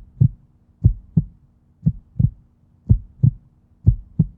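A heartbeat sound: a steady lub-dub double thump repeating about once a second, with a faint steady hum under it.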